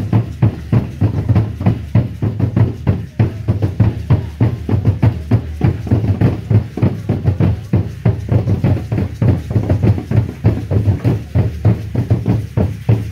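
Drumming for an Aztec dance: a fast, steady beat that keeps going without a break.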